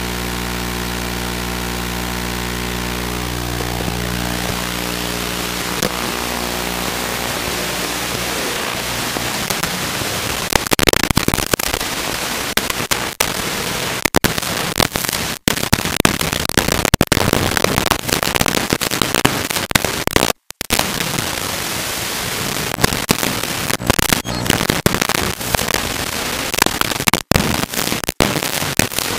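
Static from an analog FPV video receiver's audio channel. A steady buzz with even overtones fades over the first several seconds into loud hiss and crackle, with brief dropouts, as the video signal weakens and breaks up.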